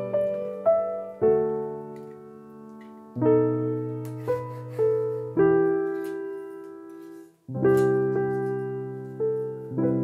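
Background piano music: slow chords struck one after another, each left to ring and fade. It breaks off briefly about seven seconds in.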